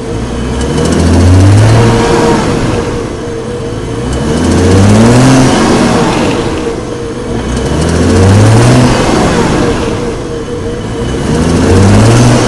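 BMW 335i's N55 turbocharged straight-six engine revving up four times, its pitch rising each time for about a second before dropping back, with a steady higher tone running underneath. This is the rpm-dependent odd noise the owner hears when the warm engine is pulled firmly from about 1200 rpm.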